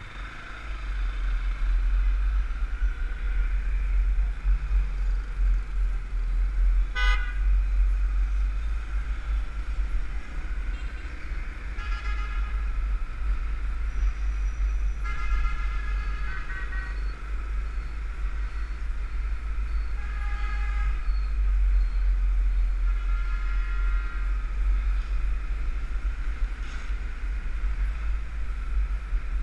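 Wind rumble and road noise on a helmet-mounted camera on a moving motorcycle, getting louder as the bike pulls away about a second in. Vehicle horns toot through the traffic: one short honk about seven seconds in, then several more spread through the second half, some doubled or held for about a second.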